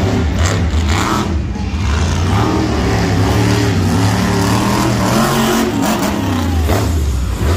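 Monster truck engine running hard and revving, its pitch rising and falling with the throttle.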